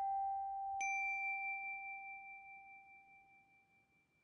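Two struck bell chimes: a lower tone, struck just before, rings on, and a higher tone is struck about a second in. Both fade slowly with a wavering ring until they die away near the end.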